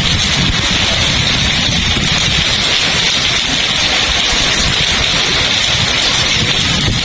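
Heavy rain pouring steadily, with strong wind buffeting the microphone in gusts underneath.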